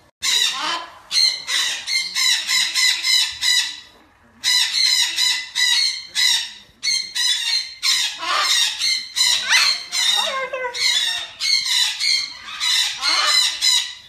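Goffin's cockatoo squawking and screeching in rapid, harsh, repeated calls, with a short pause about four seconds in.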